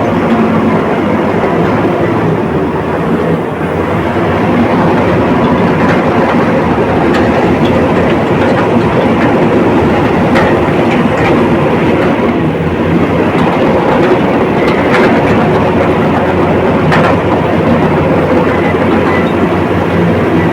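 Komatsu D85ESS crawler bulldozer's diesel engine running steadily under load, with the clatter of its steel tracks.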